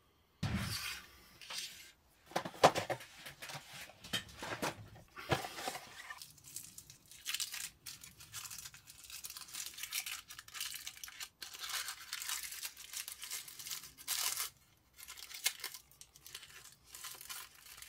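Irregular crinkling and rustling in short bursts, with brief pauses about 2 seconds in and about 15 seconds in: material such as paper or plastic being handled on a watchmaker's bench.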